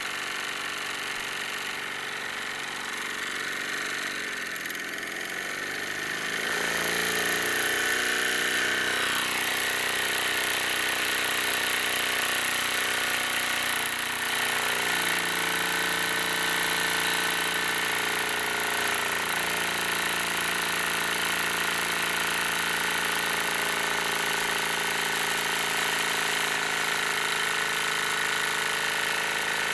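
Wilesco D-18 tabletop steam engine running steadily. About six seconds in it rises in pitch and gets louder, then holds at the faster, louder speed.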